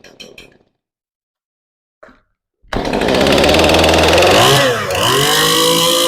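Stihl MS181 two-stroke chainsaw engine sputtering to a stop, then, after about two seconds of silence, starting again and running. About two seconds after it restarts, the revs dip and recover: the saw bogs down under throttle because its carburettor has failed.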